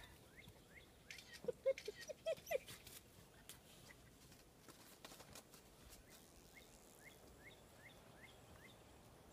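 A German Shepherd puppy giving a quick run of short high squeaks and whimpers about a second and a half in, with light scuffling. Faint, high rising chirps repeat about three times a second near the start and again later.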